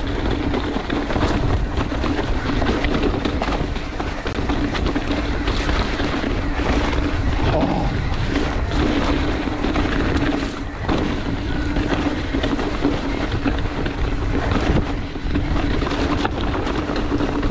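Mountain bike riding down a dirt singletrack: wind rushing over the microphone, tyres rolling on the trail and the bike rattling over bumps, with a steady hum running underneath.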